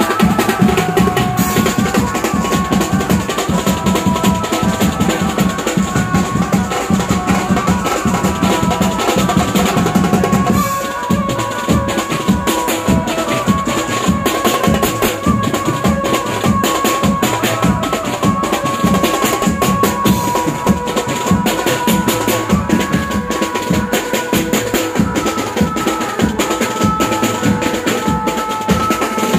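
An Indian banjo band: an electric bulbul tarang (Indian banjo) plays a melody through loudspeakers over a fast, dense beat from a group of drums, with snare and bass drums among them. The heavy low drumming thins out about ten seconds in, while the melody carries on.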